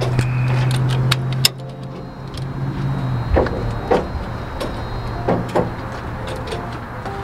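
Ratchet straps being worked to tie a pickup down on a car trailer: irregular sharp metal clicks and clanks, over a vehicle engine's low steady hum that drops away about three seconds in.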